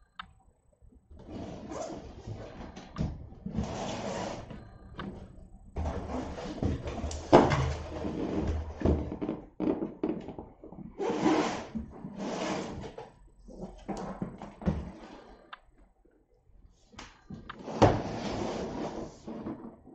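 Large cardboard box being handled and turned over on a wooden floor: rubbing, scraping and sliding in irregular bursts, with several sharp knocks, the loudest about seven seconds in and another near the end.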